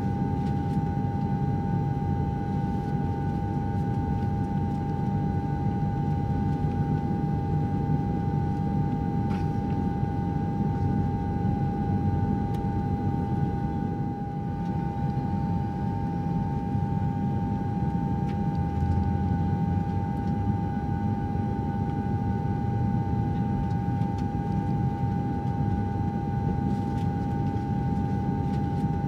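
Airliner cabin noise at cruise altitude: a steady low rumble with a constant high-pitched tone above it, unchanging throughout.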